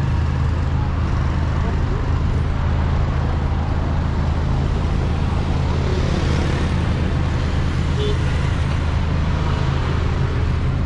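Steady road traffic with a continuous low rumble; a car passes close by, loudest about six seconds in.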